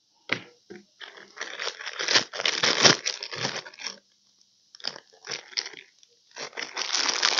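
Plastic seal-kit bags crinkling and rustling in the hands as seals are pulled out of them, in irregular bursts with a short pause a little past halfway.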